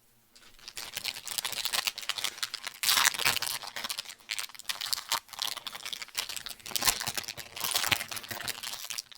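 Plastic candy-bar wrapper crinkling and crackling as a Mr. Big bar is handled and opened: a dense run of irregular crackles.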